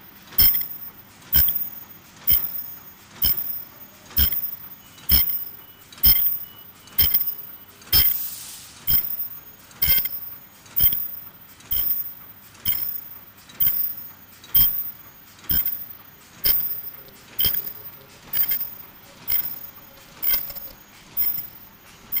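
Automatic non-woven D-cut bag making machine running, with a sharp clacking stroke about once a second, one per machine cycle, over a steady mechanical hum. A short hiss about eight seconds in.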